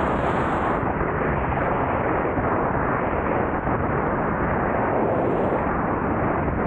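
Loud, steady wind rushing over the microphone while riding along on an electric unicycle.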